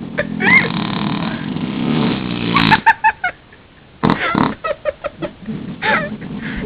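Raspberries blown on a bare leg, lips buzzing against the skin so it sounds like farting. One long buzz of about two and a half seconds, then, after a short pause, a string of shorter squeaky ones.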